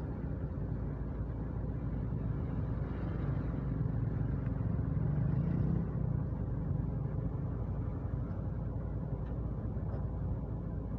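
Engine of a heavy road-construction machine running with a steady low rumble, swelling a little in the middle.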